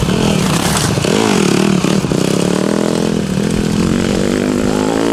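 Dirt bike engines running on a motocross track, the pitch rising and falling as the throttle is worked.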